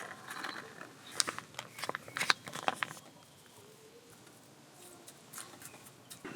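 A string of light clicks and taps from small objects being handled, for about three seconds, then only a few faint ticks.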